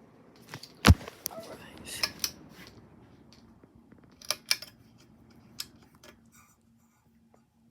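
A series of sharp clicks and light clattering, the loudest about a second in, with smaller groups following. Under them runs a faint steady hum that drops away near the end.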